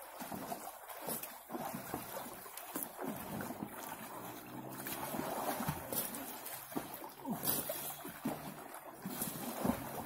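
Water churning and splashing in a frame pool as a wave simulator drives a surge of water and a man swims through it.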